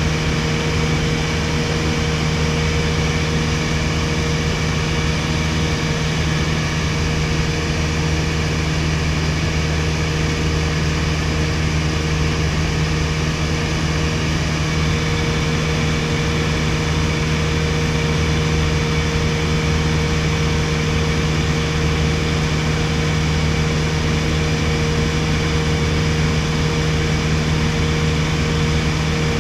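1961 Piper Colt's four-cylinder Lycoming O-235 engine and propeller running steadily in flight, heard from inside the cabin as an even drone at constant pitch.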